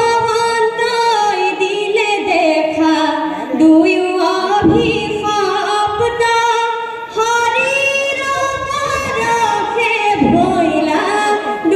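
A mixed chorus of young men and women singing dihanam, Assamese devotional group chant, in unison, drawing out long notes that glide between pitches.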